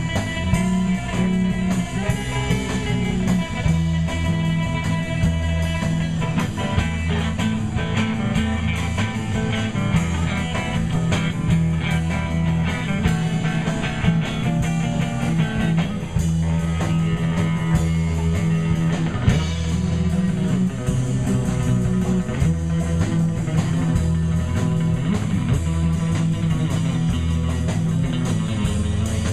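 Band playing rock music: electric guitar over bass guitar and drums, with a steady beat.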